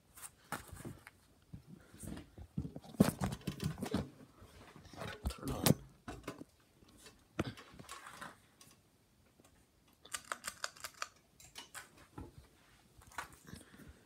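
Irregular clicks, taps and rustling, with a quick run of rapid ticks about ten seconds in; no steady motor hum stands out.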